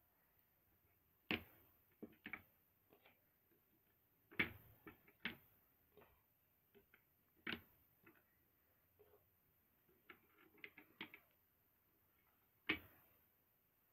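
Plastic clicks and taps from a Lego-brick candy dispenser being handled and loaded with a Starburst: a handful of sharp, separate clicks spread out, and a quick run of small ticks about ten seconds in.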